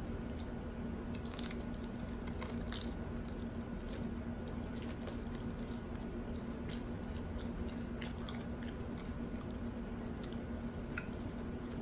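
A person chewing a mouthful of Burger King hard-shell taco, with scattered short crunches and mouth clicks.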